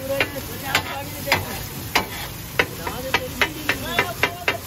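Metal spatula clacking against a hot iron tawa in quick, irregular strikes, about two or three a second and faster near the end, as tikkis fry in oil with a steady sizzle underneath.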